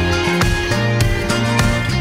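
Background music: an instrumental track with a steady beat over a low bass line.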